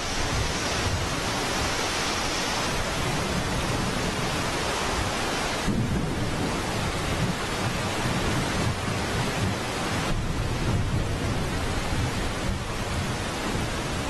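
Heavy rainstorm: a steady, dense hiss of pouring rain with a deep rumble underneath.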